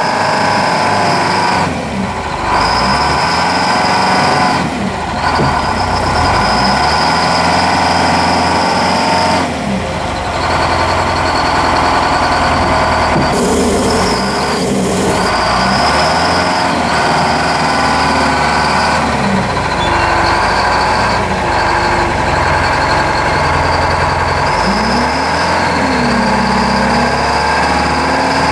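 Terex 72-41 wheel loader's diesel engine running under load, revving up and down as the loader drives and raises its bucket, with a steady high whine over the engine note.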